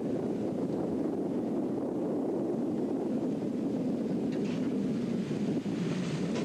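Steady wind rumbling on the microphone over the rush of sea water along a moving ship's hull, with a brief hiss about four and a half seconds in and again near the end.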